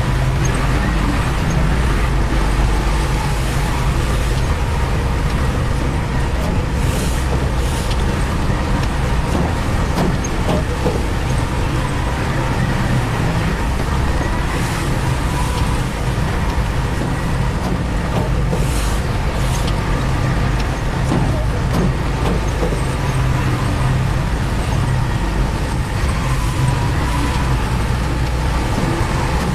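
Heavy construction machinery engine running steadily with a deep rumble, with two pairs of short high hisses, about seven seconds in and again about nineteen seconds in.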